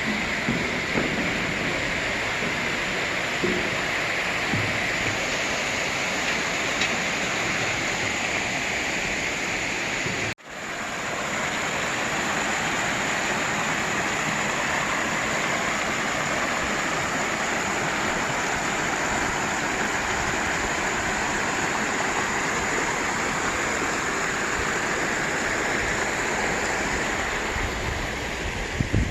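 Water of a mountain stream rushing steadily over rocks, a continuous even hiss. It cuts out for a moment about ten seconds in, then carries on the same.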